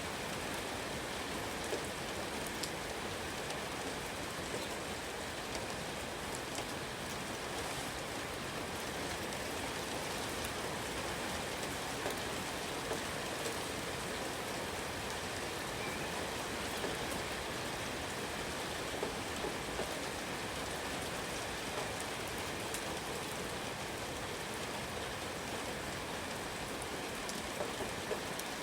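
Steady rain falling, with scattered louder drops ticking sharply close by.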